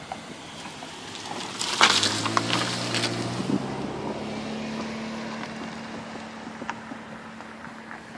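Sedan driving past close by: its engine and tyres are loudest about two seconds in, with a brief crackle, then ease into a lower steady hum that fades away.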